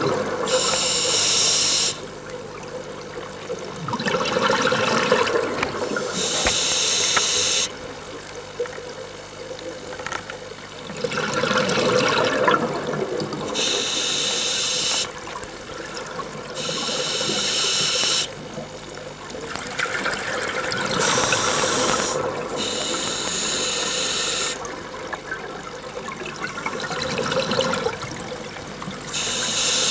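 Scuba diver breathing underwater through a regulator. Short hissing inhales through the demand valve alternate with gurgling rushes of exhaled bubbles, in a steady rhythm of several breaths.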